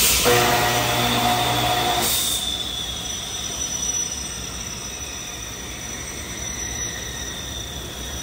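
Factory machinery on a panel production line: a loud hiss with a low hum for about two seconds, then a steady high-pitched squealing whine that drifts slowly lower in pitch.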